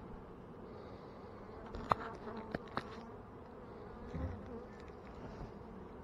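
Honey bees buzzing around an opened hive in a steady hum. A few sharp clicks come about two seconds in, and a soft thump follows about four seconds in.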